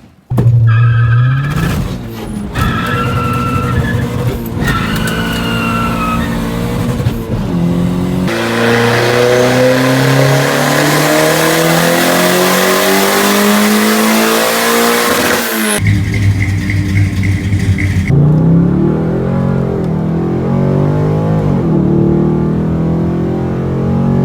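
Car engine accelerating hard, its pitch climbing in long rising sweeps one after another.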